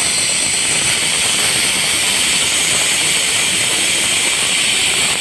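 Compressed air blasting from a metal air pipe into a small ball bearing, spinning it at very high speed: a steady, loud hiss with a faint high whine on top.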